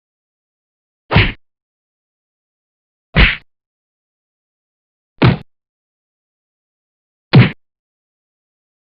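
Four fight hit sound effects, short heavy thuds of blows landing, one about every two seconds with silence between.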